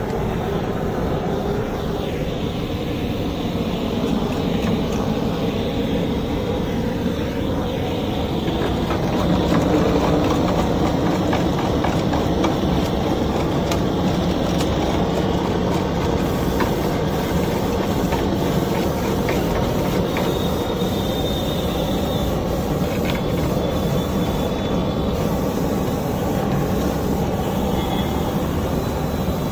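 Hose-fed gas blowtorch burning with a steady, loud hiss of flame, slightly louder about ten seconds in.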